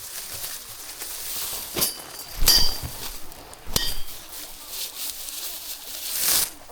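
Hand-threshing rice: bundles of paddy stalks struck against a threshing container, three sharp knocks with a short ringing clink on the loudest one. A rustling swish rises and falls near the end.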